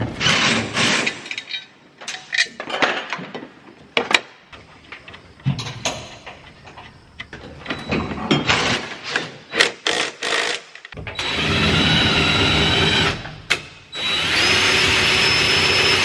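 Metal brackets and bolts clinking and knocking as they are handled and fitted. Near the end, a cordless drill runs twice, about two seconds and then several seconds, boring into the combine's sheet-metal grain tank wall.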